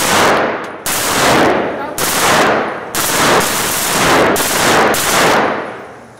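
Compact submachine gun firing about six short bursts of fully automatic fire, roughly one a second, each ringing on in the echo of an indoor range; the firing stops a little before the end.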